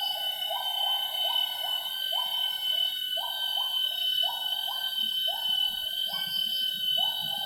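Wild gibbons singing in the rainforest: a string of short, rising hooting notes, about a dozen, often in pairs. Behind them is a steady high drone of rainforest insects.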